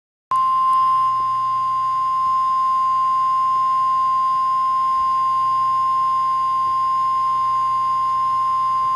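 Emergency alert attention signal: a single steady high tone, the NOAA Weather Radio warning alarm tone, sounding for about nine seconds ahead of a severe thunderstorm warning. It starts abruptly just after the beginning and cuts off suddenly near the end.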